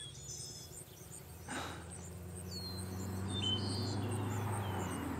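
Crickets chirping in an even, rapid pulse, with short falling bird chirps now and then. Under them a low steady hum swells from about a second and a half in.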